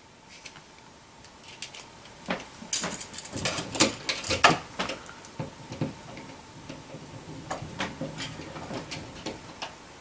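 Plastic wall plate being fitted over an electrical outlet and screwed down by hand: scattered light clicks and small scrapes, with a quick run of clicks about three to four seconds in.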